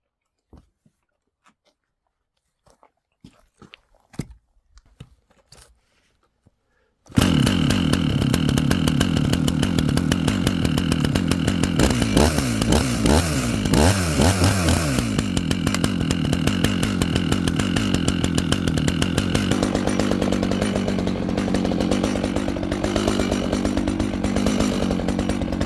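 A few faint knocks, then about seven seconds in a Dolmar two-stroke chainsaw comes in suddenly and loud. It revs up and down a few times, then runs steadily.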